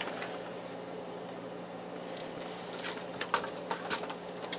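Plastic parts of a stripped-down HP DeskJet inkjet printer being handled, giving a few faint clicks and knocks about three seconds in, over a steady low hum.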